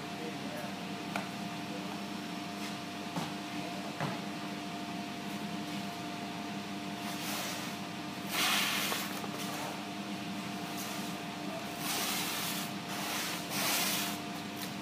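Clear stretch wrap film pulled off a hand-held roll and drawn around the edge of an MDF sliding wardrobe door: two bursts of rustling, hissing film noise, the louder about halfway through and another near the end. A few light knocks come before them, over a steady background hum.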